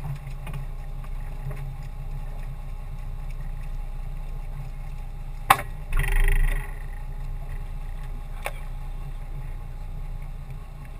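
Small open fishing boat on calm water: a steady low rumble, a sharp knock against the boat about five and a half seconds in, a short rushing noise just after it, and another lighter knock a few seconds later, as a handline is worked over the side for snoek.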